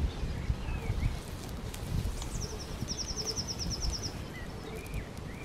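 A songbird sings a fast, high trill of evenly repeated notes, about two seconds long, in the middle, with a few other faint bird chirps around it. A low rumbling background noise runs underneath.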